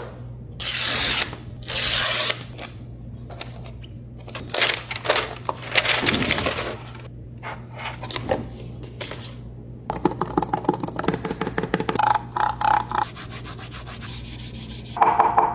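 Unboxing handling sounds: the cardboard box and packaging of an Apple Magic Keyboard sliding and rubbing, with two loud scrapes near the start. These are followed by scattered rustles and a run of quick clicks and taps in the second half, over a steady low hum.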